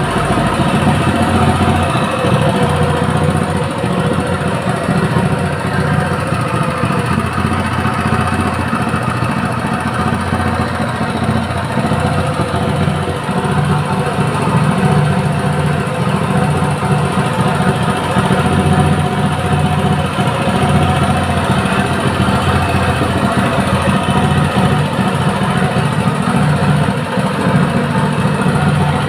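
Honda GX200 single-cylinder four-stroke engine running on LPG, holding a steady speed with no revving.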